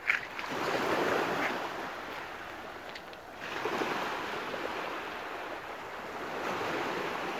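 Small waves breaking and washing up a shallow sandy beach. The surf swells about half a second in and again at about three and a half seconds.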